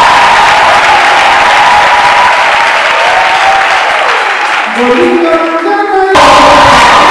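Congregation cheering, clapping and singing along over music. About five seconds in the crowd noise dips and a short melody of held notes stands out, then the loud crowd noise comes back suddenly.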